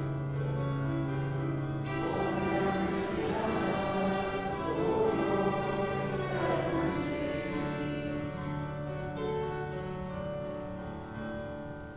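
Church organ playing held chords that change every second or two, accompanying a sung part of the liturgy, with voices faintly singing along in the middle.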